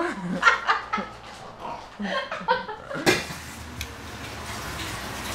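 A woman laughing hard in short breathy bursts; about three seconds in it cuts off suddenly and a steady hiss takes over.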